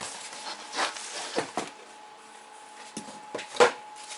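Cardboard box and packaging being handled: a few short knocks and rustles of cardboard flaps and bubble wrap, the sharpest about three and a half seconds in, over a faint steady high hum.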